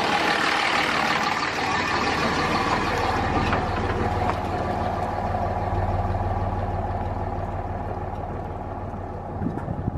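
Pickup truck carrying a heavy truck camper driving slowly over a gravel road, its engine hum growing louder toward the middle and fading toward the end as it moves away.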